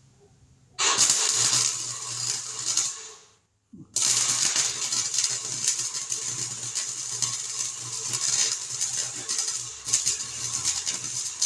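Welding arc crackling and sputtering as a weld bead is laid on a 1950 Chevy truck's bed-side patch panels, with a low hum under it. A short run of about two and a half seconds is followed by a brief pause, then a longer continuous run.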